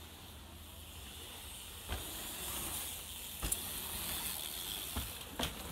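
BMX bikes riding a dirt-jump line: a hiss of tyres rolling on packed dirt that swells from about two seconds in, with a few sharp knocks from the bikes about two, three and a half, and five seconds in.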